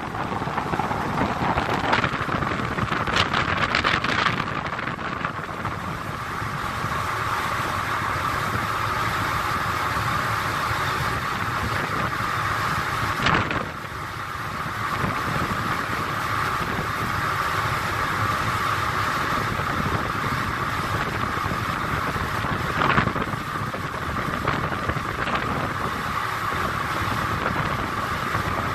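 Steady running noise of a motor boat underway, mixed with wind buffeting the microphone. A few short louder gusts or splashes come near the start, about halfway and about three-quarters in.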